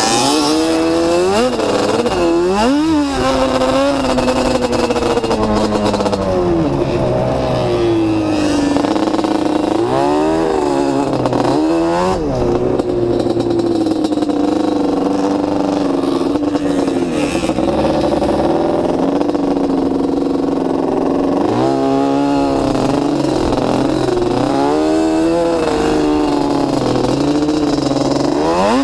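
Off-road vehicle engine heard up close from the rider's own machine, running hard across sand dunes. The revs climb and drop several times in quick runs, near the start, around ten seconds in and again after twenty seconds, with a steadier stretch in between.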